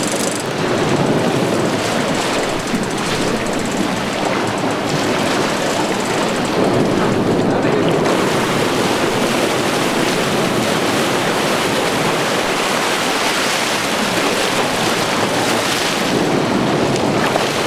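Water rushing and churning along a moving boat's hull, with steady wind noise on the microphone.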